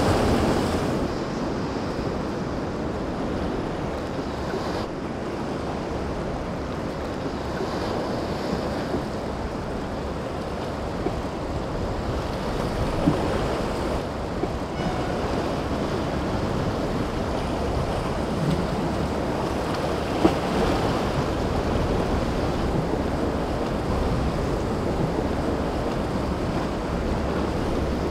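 Surf and breaking waves with wind blowing across the microphone, as a steady rushing noise with a couple of brief knocks.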